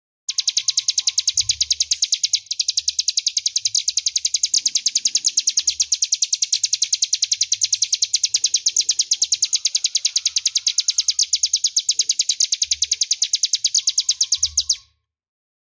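Ciblek gunung singing one long, loud, high-pitched trill of rapid, evenly repeated sharp notes lasting about fourteen seconds, which stops abruptly near the end.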